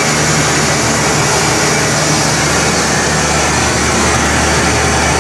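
A motor running steadily at one speed, with a low hum under a loud, even hiss.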